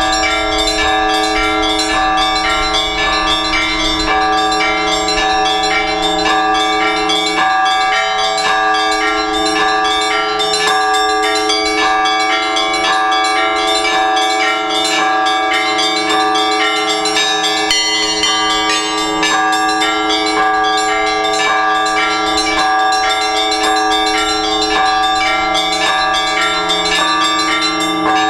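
Orthodox church bells ringing a continuous peal. Several bells of different sizes sound together, with small bells striking in a fast, steady rhythm over the sustained hum of the larger bells.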